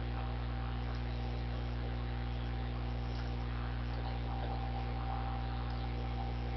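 Steady low electrical mains hum with a faint hiss under it: the recording's background noise.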